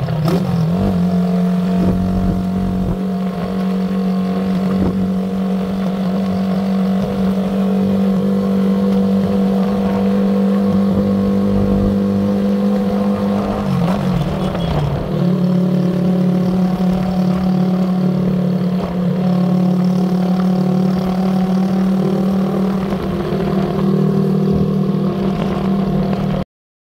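Engine of the camera vehicle following the cyclists, running steadily at cruising speed. Its note wavers and dips briefly about halfway through, then settles again, and it cuts off suddenly near the end.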